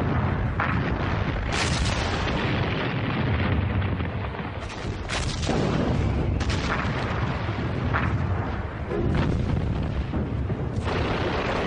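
Field artillery firing: about seven sharp shots and shell bursts every one to two seconds, the strongest about five seconds in, over a continuous low rumble.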